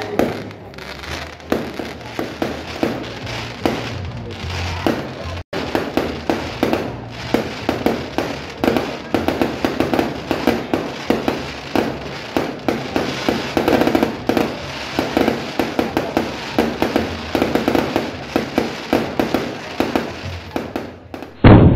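Aerial fireworks bursting in a rapid, continuous string of bangs and crackles, thickening into a dense barrage in the middle, with one loud bang just before the end.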